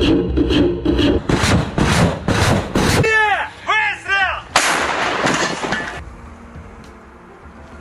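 Truck-mounted multiple rocket launcher ripple-firing a salvo, rockets leaving the tubes about three a second for the first three seconds. About four and a half seconds in comes a single loud blast that cuts off sharply, the shot of a towed howitzer.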